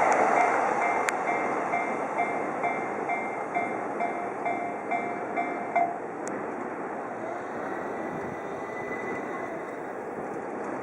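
Yamanote Line train running past and fading away, while the level crossing's electronic warning bell rings about twice a second and stops about six seconds in, the sign that the crossing is clearing.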